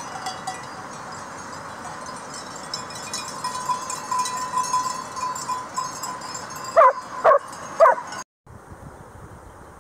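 Sheep bells clinking and ringing over the rush of a mountain stream. Near the end a dog barks three times, sharp and loud, before the sound cuts to a quieter wind hiss.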